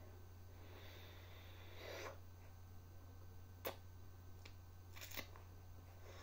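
Near silence: room tone with a steady low hum, a soft rustle about two seconds in, and a few faint sharp clicks, the sharpest a little past halfway.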